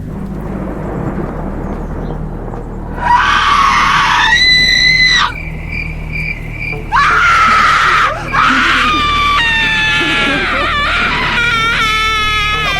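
Horror sound effect: a low rumble, then long high-pitched screams, one starting about three seconds in and lasting about two seconds, another about seven seconds in, then several overlapping wavering screams toward the end.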